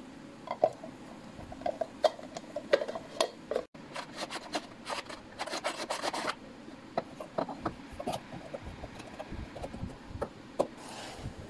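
Plastic parts of a manual spin chopper clicking and rubbing as its lid is fitted and pressed onto the clear bowl, with a quick run of rattling clicks in the middle and a short scraping rasp near the end.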